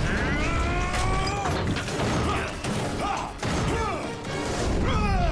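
Animated fight-scene soundtrack: dramatic background music with crashes and impacts, and several gliding, bending cries, one falling in pitch near the end.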